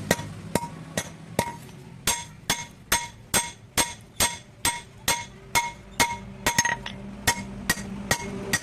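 Blacksmith's hammer striking a hasua (sickle) blade on an anvil in a steady rhythm of about two and a half blows a second, each blow ringing briefly.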